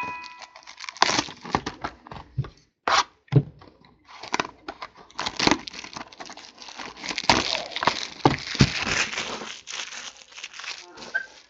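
Sealed trading-card boxes being unwrapped: plastic wrap crinkling and tearing, with cardboard handled in a run of irregular rustles and scattered clicks and knocks.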